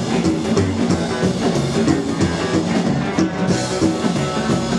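Live rockabilly band playing an instrumental stretch with drums, electric guitar and double bass, the song winding down to its close.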